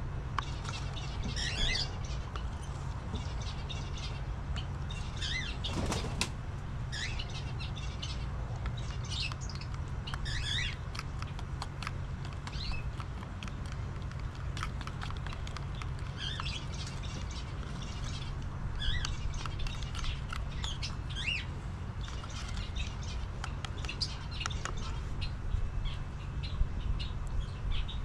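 Small birds chirping on and off, short high calls scattered throughout, over a steady low rumble.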